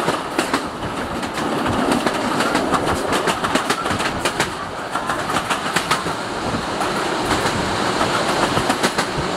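Passenger train running at speed, its wheels clicking over rail joints in irregular runs over a steady rush of track and wind noise, heard through an open window.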